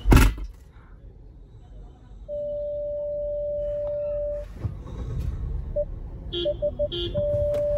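A car's parking sensor beeping: one steady tone for about two seconds, then a few separate beeps coming quicker, then a steady tone again, the warning that the car is very close to an obstacle. A loud thump at the very start.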